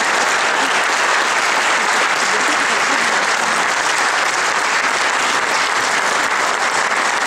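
Audience applauding steadily and loudly, greeting performers as they walk on stage.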